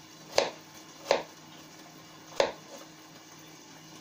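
Kitchen knife cutting raw potato into small cubes on a plate, the blade knocking sharply against the plate three times.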